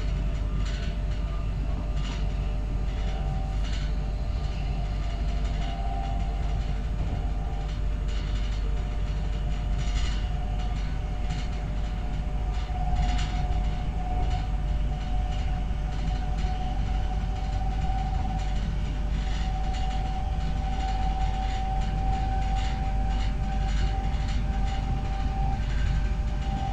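Z 20500 double-deck electric train running along the line: a steady rumble with a whine that rises slightly in pitch, and scattered clicks from the wheels on the rails.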